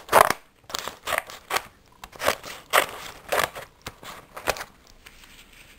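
Scissors cutting a sheet of paper into random shapes: a run of crisp snips, about two a second, that stops near the end.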